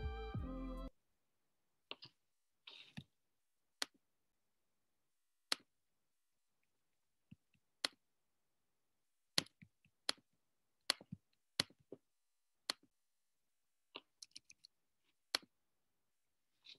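Scattered sharp clicks of a computer being worked through the presenter's microphone in a quiet room, about twenty of them at uneven intervals, some in quick clusters. They follow a brief pitched blip, just under a second long, at the very start.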